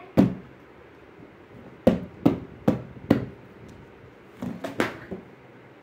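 Sharp knocks as parts of a child's tricycle are knocked together during assembly, its metal handle tube being fitted into the frame. One knock comes just after the start, then four about half a second apart, then two or three more near the end.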